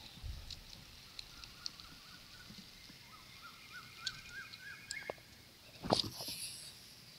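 Quiet outdoor ambience with faint ticks and a run of small repeated chirps, then a short rustle and knock about six seconds in as a hand brushes the camera.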